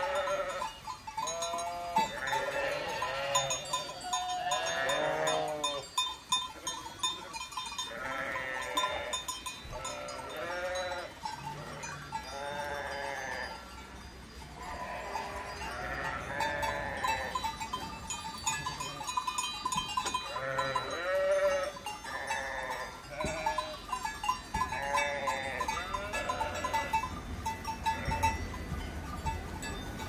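A large flock of sheep bleating, many calls overlapping one after another, with small bells clinking among them.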